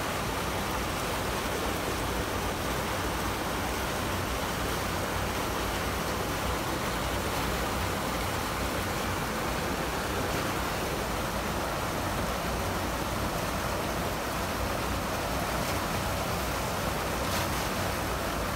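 Steady rush of water spilling over a low concrete weir into a canal.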